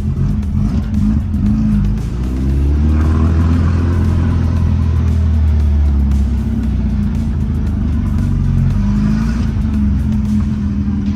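Air-cooled VW 1776cc flat-four engine in a Beetle accelerating under load: the note climbs about two seconds in, pulls hard for a few seconds, then settles to a steadier run.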